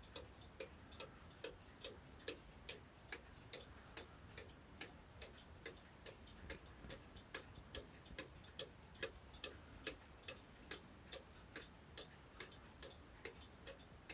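Vintage cuckoo clock's pendulum movement ticking steadily, a little over two sharp ticks a second, with no cuckoo call.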